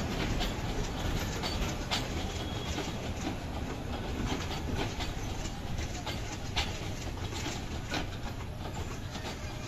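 Passenger train rolling slowly along the track: a steady low rumble of the wheels, with irregular clacks as they pass over the rail joints.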